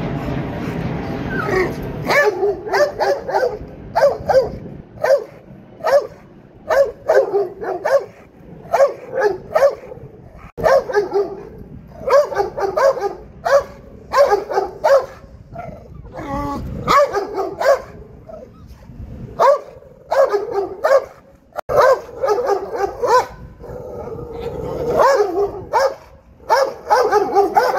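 Dog barking over and over in short, sharp barks and yips, starting about two seconds in and coming in quick runs with brief pauses.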